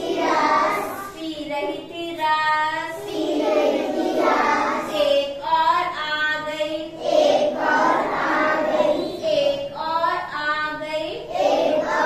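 A group of young children singing a Hindi counting rhyme together in short, rising and falling phrases.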